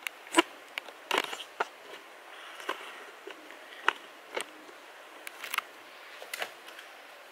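Handling noise: a string of sharp, separate clicks and taps from hands handling the camera and the unboxed items, the loudest about half a second in and again just after a second.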